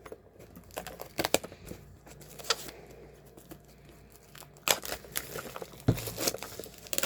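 Plastic shrink-wrap being torn open and peeled off CD album packaging: irregular crinkling and tearing in short bursts.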